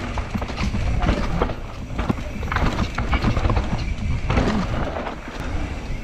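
Mountain bike rolling fast down a dirt forest trail, heard from a camera mounted on the bike: a steady low rumble of tyres on the dirt, with dense, irregular rattling and knocking from the bike over the bumps.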